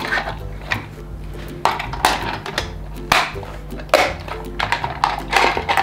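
Plastic Playmobil toy horse and trailer pieces clicking and knocking as they are handled and loaded, with separate knocks about once a second.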